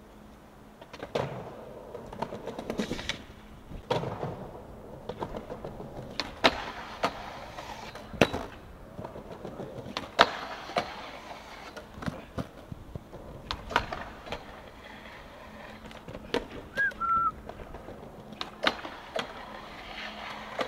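Skateboard wheels rolling on pavement, with irregular sharp clacks and knocks of the board. A short, falling whistle-like chirp comes about seventeen seconds in.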